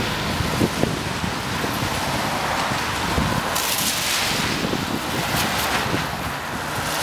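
A convoy of cars passing on a wet road, their tyres hissing through the water, loudest as one goes by close a little past halfway. Wind rumbles on the microphone.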